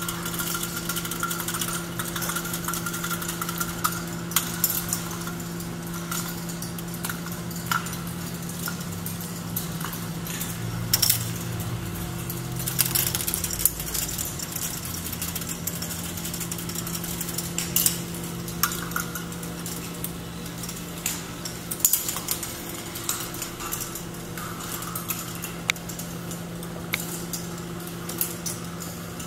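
A large K'NEX ball machine running: plastic balls rolling and clattering through the plastic tracks, giving many irregular clicks and knocks over a steady hum from the motorized lifts.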